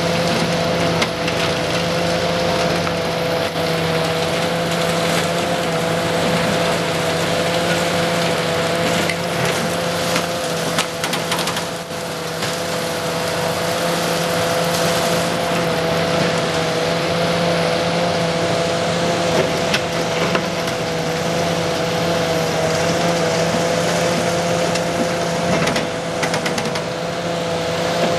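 High-reach demolition excavator crushing the concrete of a building's upper floors with its hydraulic jaw: continuous crunching and crackling with scattered sharper knocks over the machine's steady hum and high whine.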